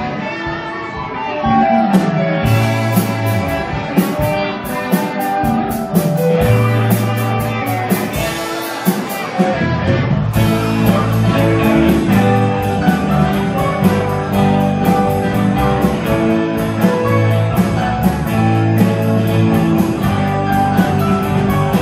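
A live rock band playing: several electric guitars over bass and a drum kit. The band gets louder about two seconds in, and the drums get busier around ten seconds in.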